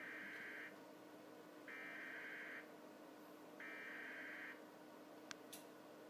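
NOAA Weather Radio SAME alert header received by an Si4707 weather-radio receiver: three short bursts of buzzy digital data tones, each just under a second long with about a second between them. The header encodes a National Weather Service tornado warning, and the receiver decodes it as it plays. Two faint clicks come near the end.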